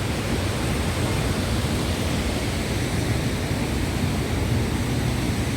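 Steady rushing of river water tumbling over small waterfalls and cascades, an even noise that does not change.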